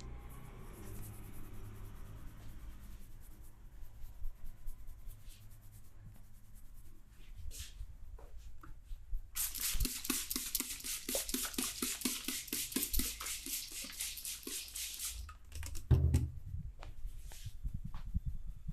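Hands massaging a head: scattered rubbing and light taps, then about six seconds of fast, even rubbing strokes with a crisp hiss. A single heavy thump comes near the end.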